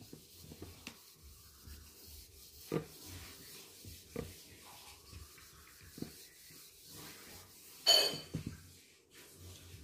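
Hand-held whiteboard eraser wiping marker writing off a whiteboard: a soft rubbing with a few light knocks, and one brief louder sound about eight seconds in.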